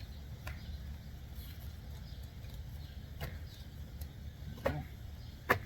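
A few sharp clicks and light knocks of plastic door-trim parts being fitted into place, four in all with the loudest near the end, over a steady low hum.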